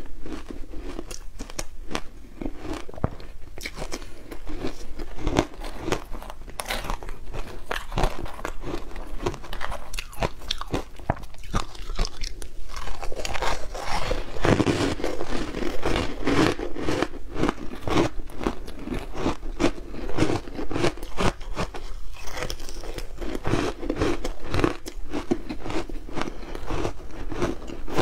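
Ice chunks coated in matcha powder being bitten and chewed close to a clip-on microphone: a dense, irregular run of sharp crunches.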